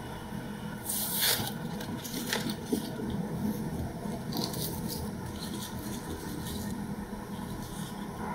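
Hands handling gimbap ingredients on a wooden cutting board: soft scrapes, crackles and light taps as cooked rice is pressed onto a sheet of dried laver and perilla leaves and carrot strips are laid on, with a louder crackly rustle about a second in.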